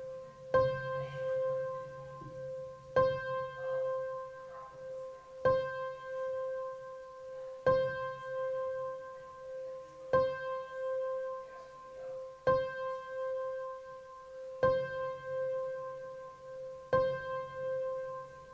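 Slow piano music: the same note or chord struck about every two and a half seconds, ringing on between strikes.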